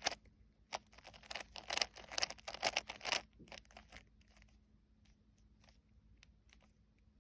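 A plastic 3x3 Rubik's cube being twisted by hand: a quick run of clicking and clacking layer turns for about three seconds, then a few fainter, scattered clicks.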